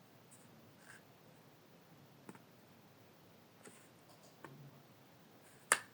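Faint scattered clicks of plastic toy-airplane parts being handled and fitted together, with one sharp, louder click near the end.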